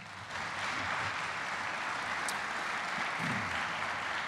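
Audience applauding steadily, the clapping rising in within the first half second.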